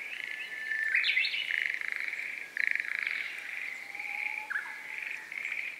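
A chorus of pulsed, trilling animal calls, mostly frog-like croaks, with a few thin whistled notes.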